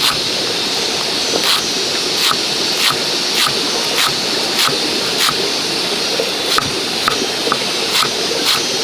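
A steady rush of water, with sharp, regular knocks about twice a second over it.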